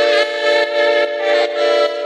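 Ambient drill instrumental beat in its intro: a sustained chord pulsing on the beat, about two and a half pulses a second, with no drums or bass.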